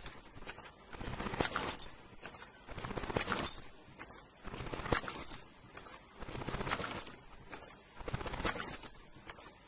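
Face-mask ear-loop welding machine running: many rapid clicks and clacks from its moving mechanism, swelling in a cycle that repeats about every one and a half seconds.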